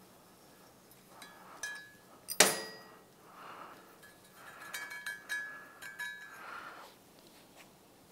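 Small metal hand tools clicking and clinking as threads are cut by hand into a drilled stud hole in an aluminum cylinder head. A sharp click about two and a half seconds in is the loudest, and a run of short ringing clinks comes between about five and six and a half seconds in.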